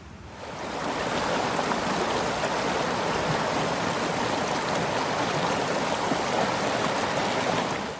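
Creek water rushing over rocky cascades: a steady, full rush that swells up in the first second and cuts off abruptly just before the end.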